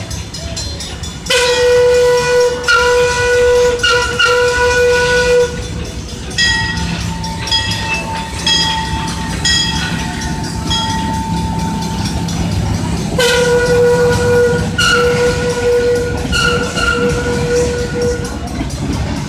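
Steam locomotive whistle sounding as the train passes: a long blast, then a higher, ringing tone that pulses several times, then a second long blast, over the steady low rumble of the train rolling by.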